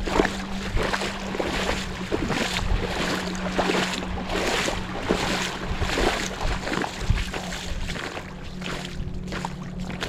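Footsteps wading through a shallow river, water sloshing and splashing around the legs with each stride, over a steady low hum.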